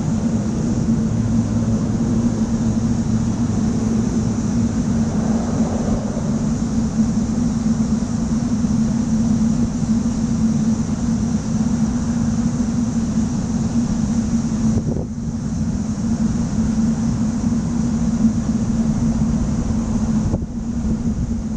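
A steady low mechanical hum, holding one pitch without rising or falling, with wind rumbling on the microphone.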